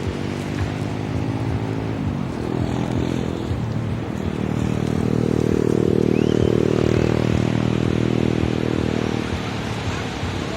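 A motor vehicle's engine running, growing louder to a peak about six seconds in and then easing off, like a vehicle passing by.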